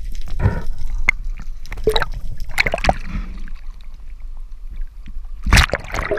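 Sea water sloshing and splashing around a camera as it dips in and out of the surface, with gurgling bursts. The biggest splash comes near the end.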